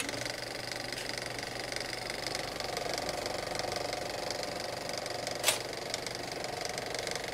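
Windmill gear machinery running: a steady mechanical rattle and clatter with an even hum, and one sharp knock about five and a half seconds in.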